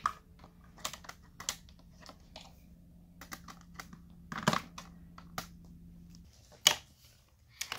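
Plastic toy dollhouse pieces being handled: scattered light clicks and taps as the plastic front door is opened and figures are moved, with two louder knocks, one about halfway through and one near the end.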